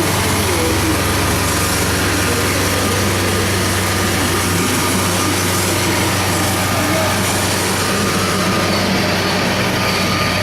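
A large engine running steadily at a constant speed, with a low hum and no change in pitch.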